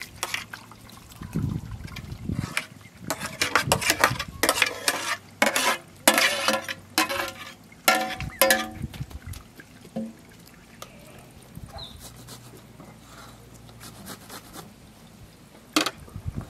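Chopped watermelon flesh tipped from a metal tray into a sieve: wet squelches, splats and scrapes come in quick clusters for about the first ten seconds. After that the sound is much quieter, with one sharp knock near the end.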